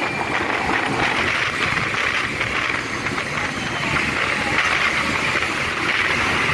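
Steady road traffic noise: vehicle engines running under a constant hiss.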